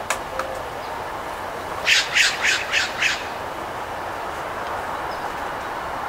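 A bird gives a quick run of five harsh squawks about two seconds in, over steady outdoor background hiss.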